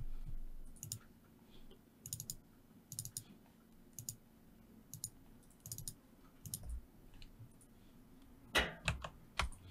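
Computer mouse clicking: single and paired clicks about once a second, then a few louder, sharper clicks near the end.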